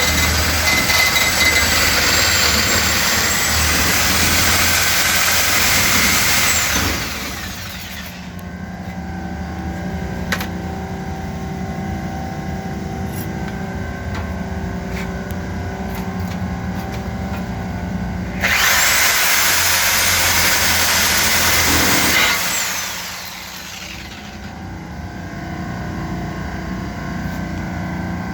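Reciprocating saw (Sawzall) cutting the refrigerant discharge line to remove a leaking vibration absorber, in two runs of several seconds each. Each run ends with the motor winding down in a falling whine. A steady machine hum continues in between.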